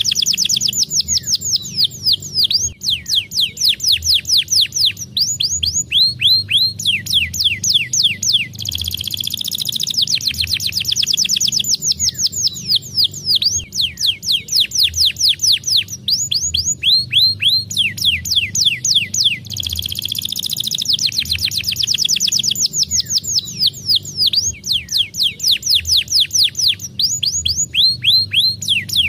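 Domestic canary singing a long, loud song of rapid trills made of quick down-slurred high notes, with the same sequence of phrases repeating about every ten seconds.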